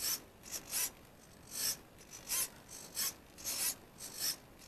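Tricopter tail servo buzzing in about ten short bursts, roughly two a second, as the flight controller's gyro swings the tail motor against each hand tilt of the frame.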